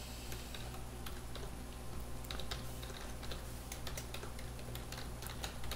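Typing on a computer keyboard: scattered, irregular key clicks, over a steady low hum.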